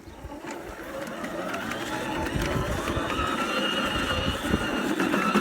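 Greenworks Pro 60-volt battery lawn mower running with its self-propelled drive engaged, the electric drive slowly spooling up: the sound builds over the first couple of seconds and a steady whine sets in about three seconds in. The drive is slow to spool up, which the owner suspects may be a defect or may need a break-in period.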